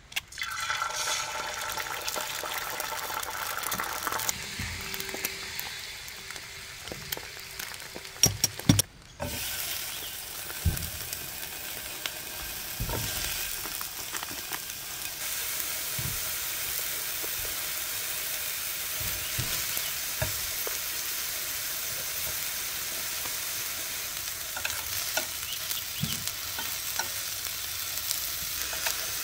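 Food sizzling in hot oil in an electric skillet: eggs hit the pan at the start, and after a break sausages fry steadily. A few sharp knocks about eight seconds in.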